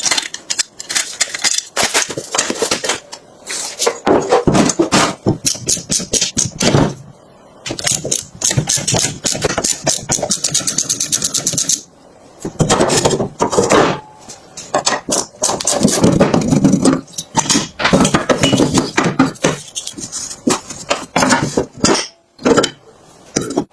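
Metal tools and bike parts clanking and rattling in quick runs of sharp knocks and clicks, broken by several short pauses.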